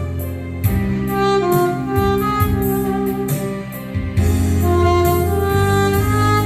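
Saxophone playing a melody of held and moving notes over an accompaniment with a bass line and a steady drum beat.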